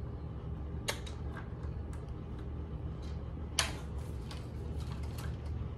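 A few light handling clicks over a steady low hum: a sharp click about a second in and a louder one a little past the middle.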